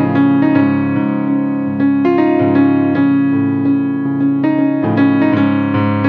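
Background instrumental music: a steady run of keyboard notes.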